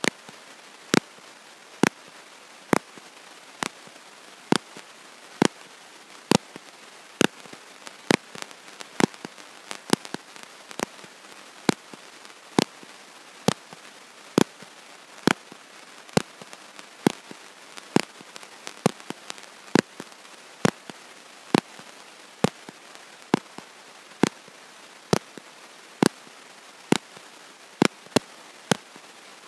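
Sharp clicks, roughly one a second and not quite evenly spaced, over a steady hiss, with no speech to be heard.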